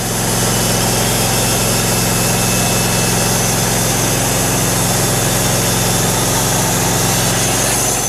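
Portable band sawmill's 15 hp engine running steadily at high speed. It fades in at the start and fades out near the end.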